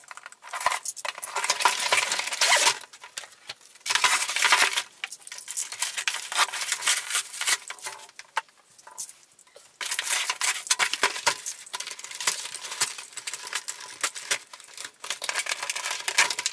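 Cardboard box and plastic packaging of a toy blaster being cut open and pulled apart by hand: scraping, tearing and rustling in several bouts with short pauses, mixed with small clicks and knocks as parts are set down on the table.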